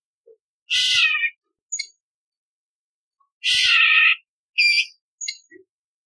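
Orange-bellied leafbird calling: two harsh, rasping calls of about half a second each, about a second in and near the middle, with short sharp high notes between and after them.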